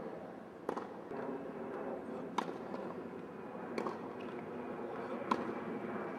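Tennis ball struck by a racket in a baseline rally: four sharp pops about a second and a half apart.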